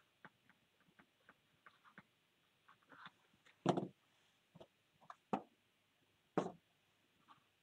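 A few scattered soft taps and knocks of objects being handled and set down on a tabletop, with three louder knocks spread through the second half.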